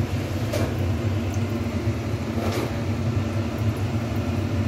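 A steady low mechanical hum with a faint hiss, unchanging throughout.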